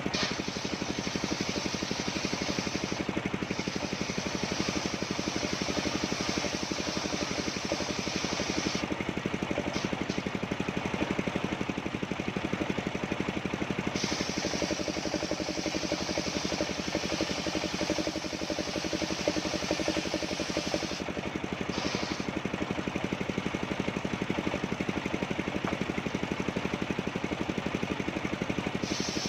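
Engine of a mobile circular sawmill running steadily at an even pace, with a high-pitched band that drops out briefly a few times.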